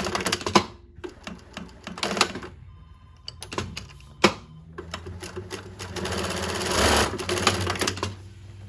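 New-Tech GC-8752-04 twin-needle split-bar industrial lockstitch sewing machine with a direct-drive motor, stitching denim in short runs with pauses between them. There is a sharp click about four seconds in, then a longer, steadier run near the end.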